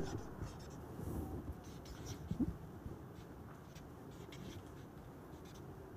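Faint scratching strokes of a marker pen writing on a whiteboard.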